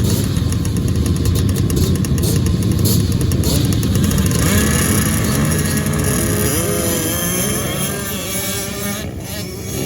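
Ice-racing engines running hard at high revs. About halfway through, one engine's pitch slides up and down as it revs and goes by, and the sound eases off a little near the end.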